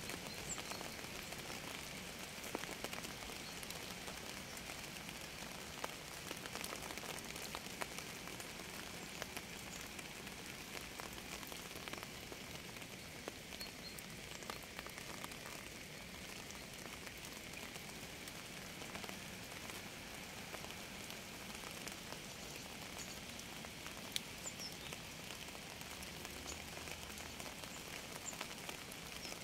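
Steady rain falling on a surface, with individual drops ticking now and then.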